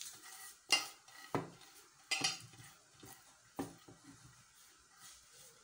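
Handfuls of oil-coated vermicelli being dropped into a metal steaming pot, with four light knocks and clinks against the pot and faint rustling of the strands between them.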